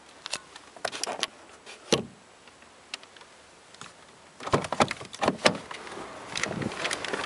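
Scattered clicks and knocks from handling parts of a 2011 Kia Cerato's rear cabin. Then the rear door's inside handle is pulled and the door unlatches and opens with a quick cluster of loud clunks, after which a steady outside noise comes in.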